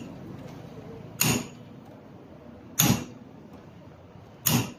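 Three hammer blows, evenly spaced about a second and a half apart.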